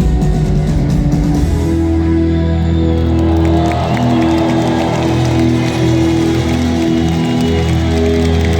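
A rock band playing live, heard from among the audience, with held chords over a steady bass line.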